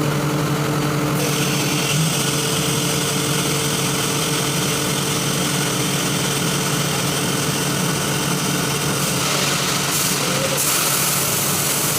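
Atlas Copco GA 165 oil-injected rotary screw air compressor running steadily: a constant machine hum with several steady tones under an airy hiss, the hiss growing stronger near the end.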